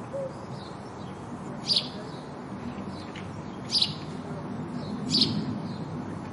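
House sparrow chirping: three loud, sharp chirps about two seconds apart, with fainter chirps between them, over a steady low background rumble.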